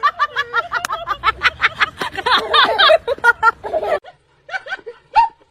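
Rapid bursts of laughter, breaking off suddenly about four seconds in, followed by a few fainter scattered bursts.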